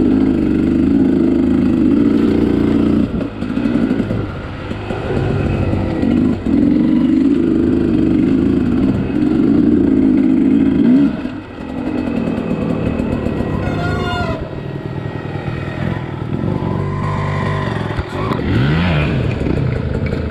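Two-stroke dirt bike engine being ridden over a trail, the throttle rolling on and off with brief drops in engine note about 3, 6 and 11 seconds in, and a quick rev near the end.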